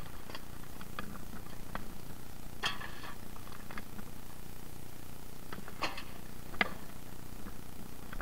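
Rummaging through rubbish in a dumpster: scattered light clicks and rustles, with a few louder crinkling knocks.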